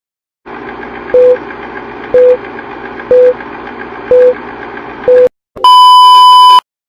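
Old-film countdown leader sound effect: five short beeps about a second apart over a steady hiss. After a brief gap comes a loud, steady television colour-bars test tone lasting about a second, which cuts off sharply.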